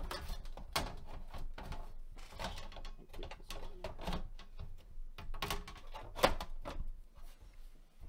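Metal top cover of a Dahua NVR being lifted, repositioned and slid forward onto the chassis: a run of small metal clunks and scrapes, the sharpest about six seconds in.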